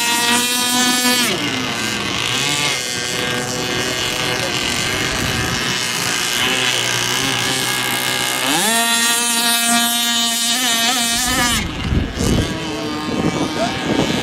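Gasoline RC racing boat's small two-stroke engine running at high revs as the boat speeds across the water; its pitch drops about a second in and climbs sharply again about eight seconds in as the throttle opens. Near the end, wind buffets the microphone with low rumbles.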